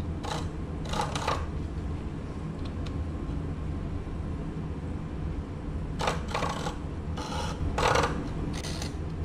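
Japanese handsaw cutting across a wooden guitar brace strip to notch it, in separate rasping strokes: two in the first second or so, a pause, then a run of about four strokes in the last three seconds, over a steady low hum.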